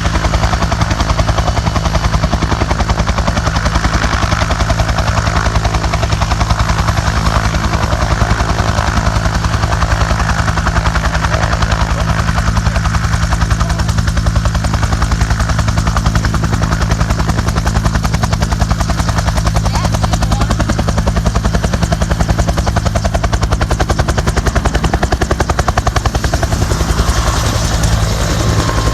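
A heavy engine running steadily, with a deep hum and a rapid, even pulsing beat that holds unchanged throughout.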